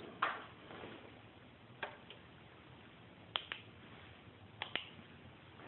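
Four or five faint, sharp clicks, irregularly spaced about a second and a half apart, over quiet room tone.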